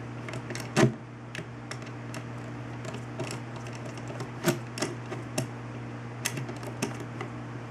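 Screwdriver driving the takedown screw into a Ruger 10/22 rifle's action and stock, giving a dozen or so small, sharp metal clicks and taps at uneven spacing, the loudest a little under a second in. A steady low hum runs underneath.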